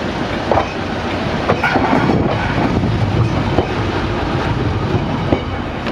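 Class 141 Pacer railbus passing close by at low speed: its underfloor diesel engine running, with its wheels clicking now and then over rail joints.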